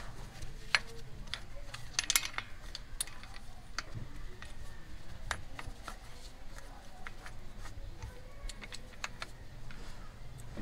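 Small metal clinks and clicks from a brake caliper piston compressor tool and its washer being handled and fitted against a brake caliper, with a quick flurry of clinks about two seconds in.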